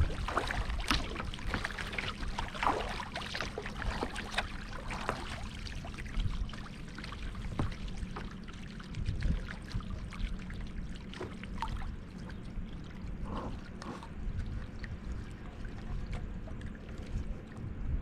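Water splashing and dripping around a kayak, a run of short splashes and drips that thins out after the first few seconds, over a low steady rumble of wind on the microphone.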